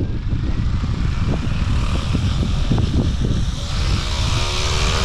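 Yu Xiang F11 Apache RC helicopter spooling up: the electric motor's whine rises in pitch, then from about four seconds in the rotor runs at speed with a steady hum and added hiss. One main rotor blade is cracked and makes extra noise. Wind buffets the microphone throughout.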